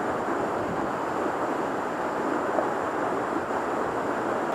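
Small waterfall pouring into a rocky creek pool: a steady rush of falling water.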